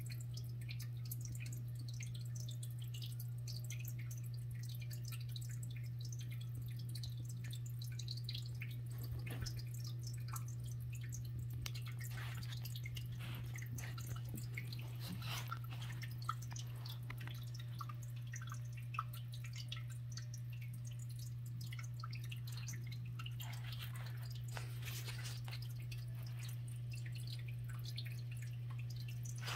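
A steady low hum with faint, scattered clicks and ticks over it.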